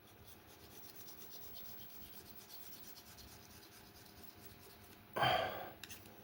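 Faint, quick rubbing and scraping strokes on an MPC 2000's LCD screen as glue residue is cleaned off with alcohol. A brief, louder rush of noise comes about five seconds in.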